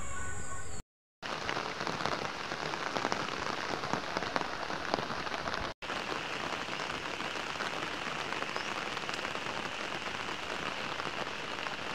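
Steady rain falling on garden plants and umbrellas, with many separate drops heard. It starts after a brief break about a second in.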